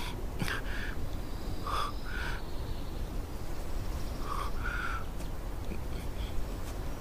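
A bird calling in short paired calls, three pairs spread across a few seconds, over a steady low outdoor rumble.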